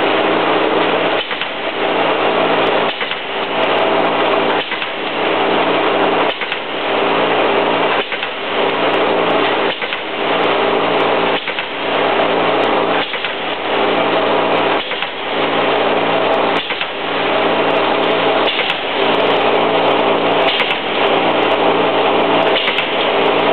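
Wire straightening and cutting machine running: a loud, steady mechanical whirr over a low motor hum, broken by a short regular dip and knock about every 1.7 seconds.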